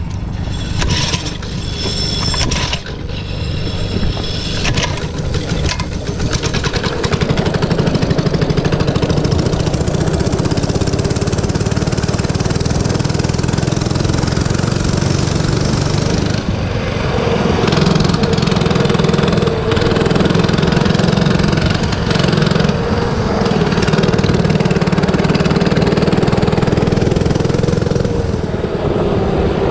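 97cc Baja mini bike's small single-cylinder engine running under throttle as it is ridden, getting louder about a quarter of the way in, easing off briefly just past halfway, then louder again.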